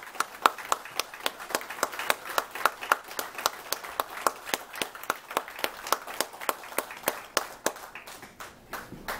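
Audience clapping together in a steady rhythm, about four to five claps a second, thinning out and stopping near the end.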